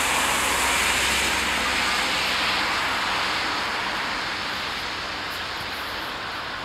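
Steady hiss of outdoor background noise, slowly growing quieter, with no voices.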